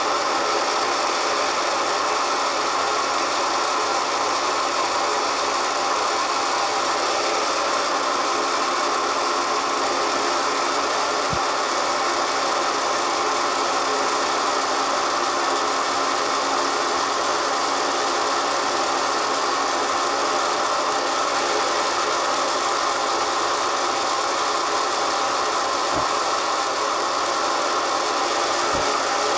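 Milling machine running steadily as a drill bores into a mild steel block, a constant mechanical whine with a hum beneath it. Two faint ticks sound partway through.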